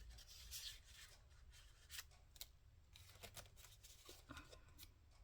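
Faint rustling of paper and card being handled and placed, with a few light taps.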